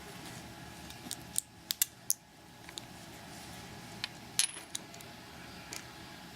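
Sharp metallic clicks and clinks of small metal parts of a Mul-T-Lock 7x7 lock being handled: a cluster of about five a second in, then three more a few seconds later.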